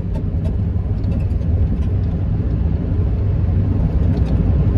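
Steady low rumble of engine and road noise inside a work truck's cab while driving.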